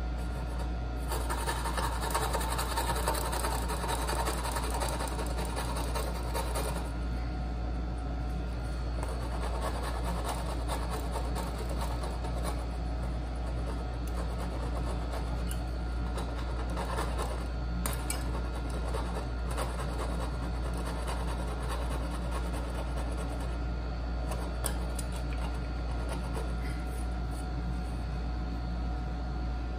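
Hand tools working wood on a dovetail joint: scraping and rubbing strokes, loudest for the first several seconds and fainter after, over a steady low hum.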